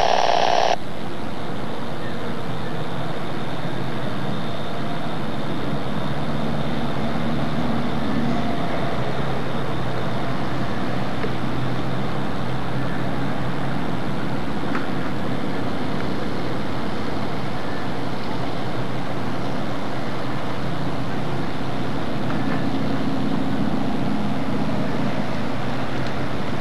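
Steady low drone of boat diesel engines from a harbor tug and a lake freighter, over an even background hiss, swelling slightly a few seconds in and again near the end.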